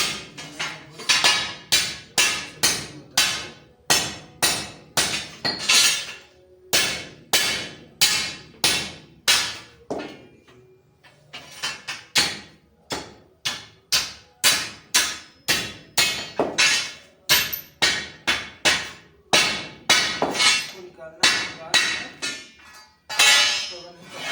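Hammer striking steel angle iron in steady blows, about two a second, each with a short metallic ring, with a brief pause about ten seconds in: the angle is being hammered straight.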